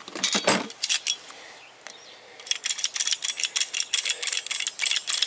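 Ratcheting PEX tubing cutter cutting through PEX pipe: a few clicks early, then a quick run of sharp ratchet clicks from about halfway in.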